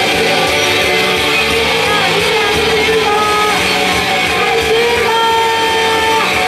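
Loud rock song with strummed electric guitar, and a woman singing a melody into a handheld microphone over it.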